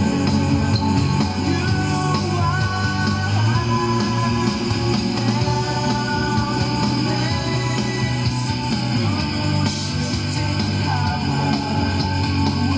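A rock song with a singer and guitar plays steadily over the stereo system. It is the test track for the repaired Sansui SE-8 graphic equalizer.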